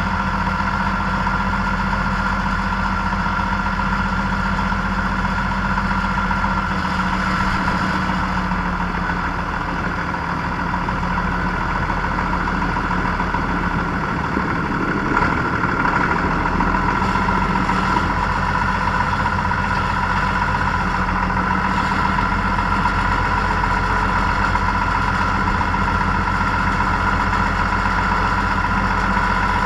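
Tractor engine running steadily at an even speed, a constant low drone with a steady whine above it.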